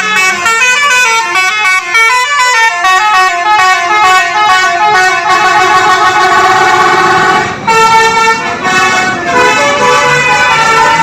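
Bus telolet horn, a Basuri multi-tone horn, playing a fast melody of quickly changing notes, loud, with a short break about two thirds of the way through.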